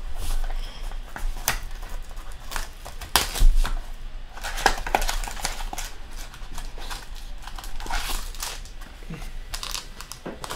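Foil trading-card pack wrapper crinkling and tearing as it is peeled open by hand, in irregular bursts.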